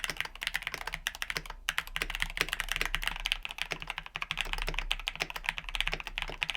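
Fast, continuous typing on a mechanical keyboard fitted with linear switches, with a brief pause about one and a half seconds in.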